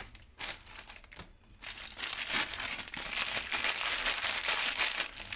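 Crinkling of a plastic snack packet as it is cut open with scissors and pulled apart by hand. It comes in short bursts with two brief lulls in the first two seconds, then crinkles without a break.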